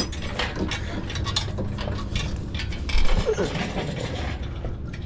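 Hand tools ratcheting and clinking on metal in rapid, irregular clicks, over a steady low hum.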